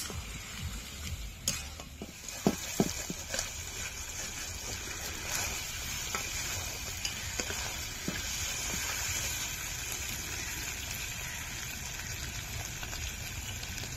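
Mutton frying with onion, tomato and spice pastes in a pan, sizzling steadily with a hiss as it is stirred and browned (the kosha stage of a Bengali curry). A few knocks of the stirring spoon against the pan come in the first few seconds.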